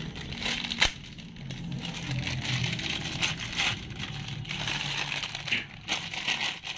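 A thin plastic parts bag crinkling and crackling as it is cut open with a utility knife and a new ignition coil is pulled out of it, with a sharp click a little under a second in.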